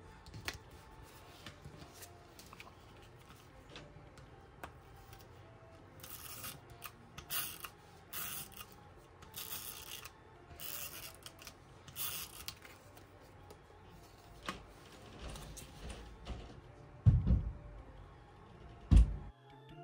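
A tape runner drawn across paper in several short strokes while stickers are handled on a planner page, the strokes coming about six to thirteen seconds in. Two heavy thumps near the end are the loudest sounds.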